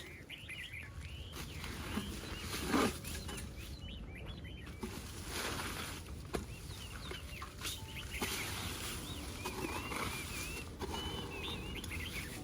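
Birds calling with many short chirps throughout, over a low background noise. A brief louder sound comes about three seconds in.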